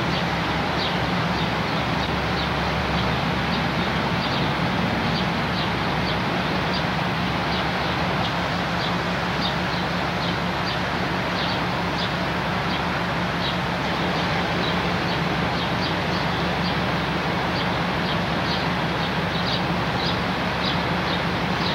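Skunk River floodwater rushing steadily around posts and signs, with a bird chirping over it in short high chirps about once a second.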